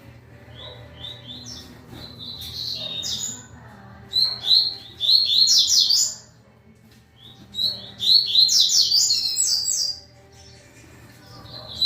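A male double-collared seedeater (coleiro) singing three bursts of quick, high, repeated chirping notes: its courtship song to nearby females.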